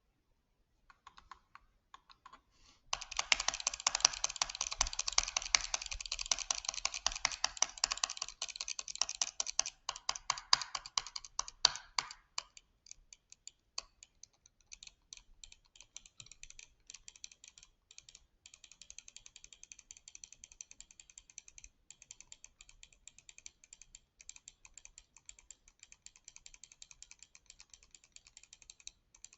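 Rapid, dense clicking, loudest from about three to twelve seconds in, then thinning to lighter, sparser clicks that go on to the end.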